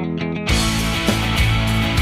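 Background rock music: a clean plucked guitar part that breaks, about half a second in, into a full band with distorted guitars and drums.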